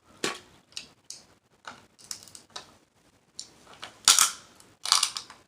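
Snow crab leg shell being cracked open with the teeth: a run of sharp clicks and cracks, with louder crunching bursts about four and five seconds in.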